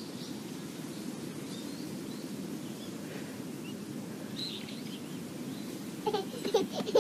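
Outdoor ambience: a steady low background noise with faint bird chirps now and then, and a few short sharp sounds about six seconds in.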